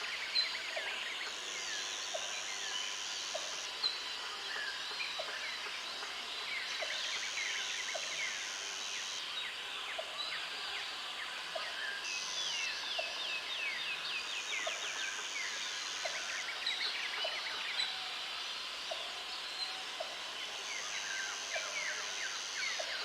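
Natural forest ambience: a dense chorus of many birds chirping and twittering, with a high steady buzz that switches on and off every few seconds and soft, regular ticks about once a second.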